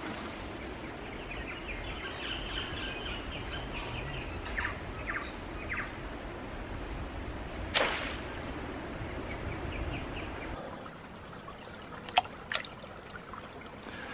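Small birds chirping, then about eight seconds in a single splash as a baited trap is thrown into a pond, and two sharp clicks near the end. A low rumble stops about two-thirds of the way through.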